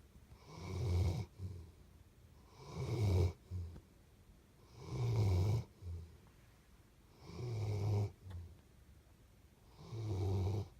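Steady, rhythmic snoring: five low snores about two seconds apart, each about a second long and followed by a short low puff.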